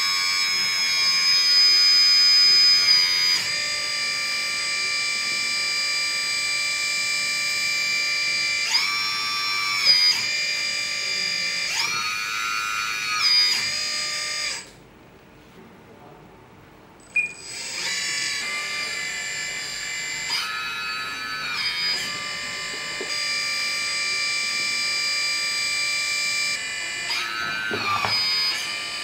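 Electric hydraulic pump of a 1/14-scale RC truck whining as its loader crane is worked. The whine is steady and multi-toned, rises in pitch briefly several times as the crane valves are opened, and cuts out for about two and a half seconds midway before starting again.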